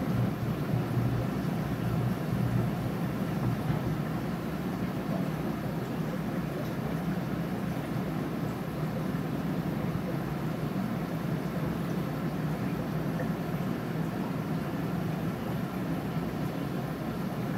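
Steady deep hum with a rushing noise over it from running aquarium equipment, slightly louder in the first few seconds.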